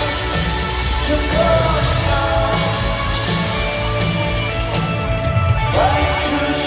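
Live rock band playing, with singing over a steady bass line; a sung note slides upward about six seconds in.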